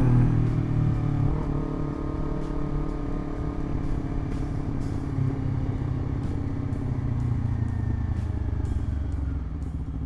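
Honda CBR250RR SP's parallel-twin engine through a Villan MV2 aftermarket exhaust, heard from the rider's seat while the bike slows down, its note slowly falling in pitch.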